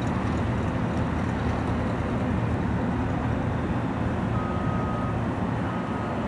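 Single-engine floatplane heard from a distance, its engine droning steadily at low power as it comes down to land on the water.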